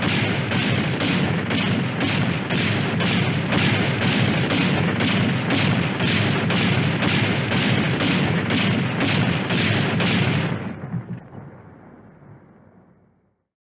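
Cannon fire: a rapid barrage of booms, about two a second, over a continuous rumble. It stops about ten and a half seconds in and dies away over the next couple of seconds.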